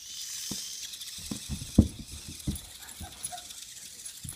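A Bernese mountain dog sniffing and shuffling at a toy, with soft irregular thumps, the loudest about two seconds in.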